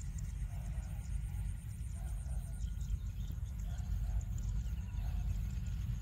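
Low, fluctuating wind rumble on the microphone, with faint high insect ticking and soft repeated calls.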